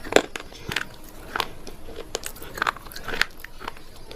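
A person biting and chewing something hard, dry and crunchy close to the microphone: a string of crisp crunches at irregular intervals, about one or two a second.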